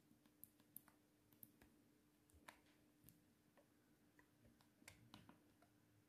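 Faint, irregular clicking of a Nokia 7360's keypad and navigation keys being pressed while scrolling through the phone's menus.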